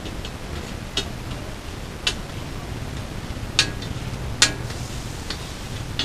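Sharp metallic clicks of a metal spatula striking a large flat street-food griddle (tawa), about five at irregular intervals, the loudest two a little past the middle, over a steady hiss.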